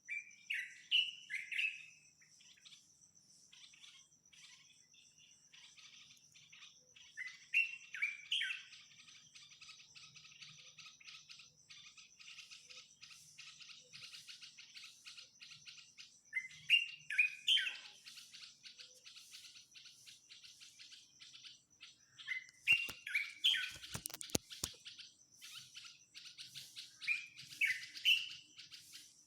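Songbirds singing in the morning: one bird repeats a loud phrase of three or four quick sweeping notes five times, about every five to nine seconds, among many softer chirps. A steady high insect trill runs underneath, and a few sharp clicks come about three-quarters of the way through.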